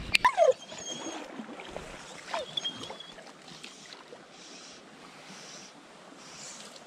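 Shallow creek water running over a riffle, a steady rush, with two short falling squeaks, one at the very start and one about two and a half seconds in.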